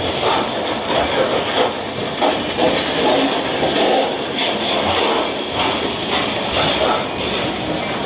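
Covered hopper cars of a freight train rolling past close by, their steel wheels rumbling and clicking steadily on the rails.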